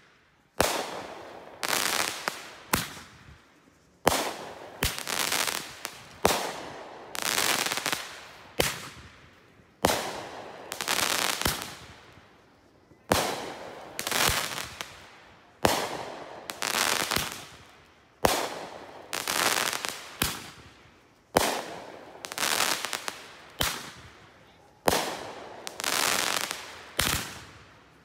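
A multi-shot consumer fireworks cake firing its shots one after another, every two seconds or so: each a sharp bang trailed by a spell of crackling as the shell bursts.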